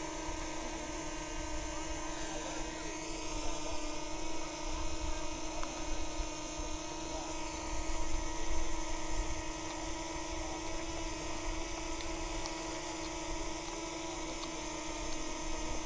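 A steady hum made of several fixed tones, with wind rumbling on the microphone and a few faint clicks from handling a drone remote controller in the second half.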